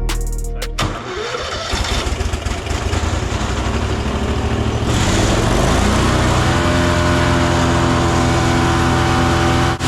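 Gas engine of a 7-inch wood chipper coming up to speed: its pitch rises over several seconds and then holds steady at full running speed. The last bit of background music cuts off about a second in.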